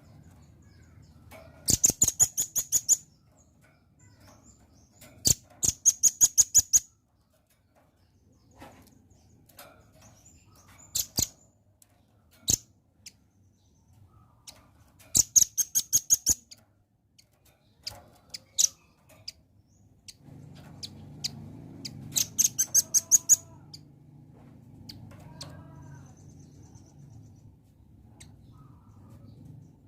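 Velvet-fronted nuthatch calling: four rapid rattling series of about ten sharp, high chips, each lasting a little over a second, with single sharp notes between them.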